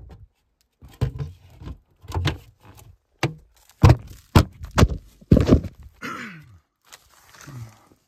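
A run of irregular thuds and knocks as a heat pump's sheet-metal filter access panel is put back on and someone moves about on a plastic vapor barrier, with a brief rustle of the plastic sheeting after the loudest knocks.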